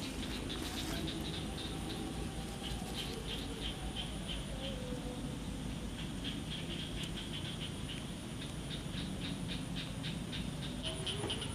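Outdoor ambience: runs of short, quick high chirps over a steady high-pitched drone and a low rumble.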